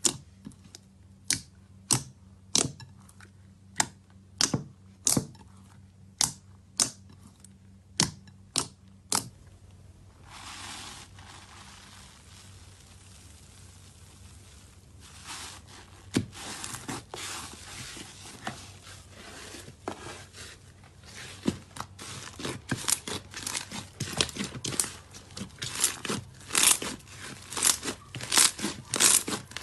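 Hands working slime. First comes a run of sharp pops, roughly two a second, as fingers press into soft blue slime. About ten seconds in there is a steady soft hiss as clear pink slime is stretched, and some five seconds later it gives way to crackling and quick pops that grow denser as slime is squeezed and kneaded.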